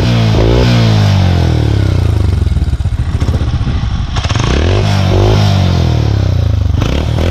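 Honda TMX 125 Alpha's single-cylinder four-stroke engine running through an open 'chicken pipe' exhaust, the throttle blipped so the revs rise and fall several times, with a lower, uneven idle in the middle.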